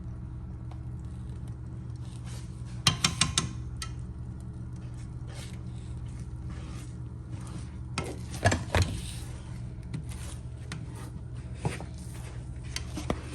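A spatula clinking and scraping against a frying pan while eggs are cooked: a quick run of four or so clinks about three seconds in, a louder clatter just past eight seconds, and a few lighter knocks later, over a steady low hum.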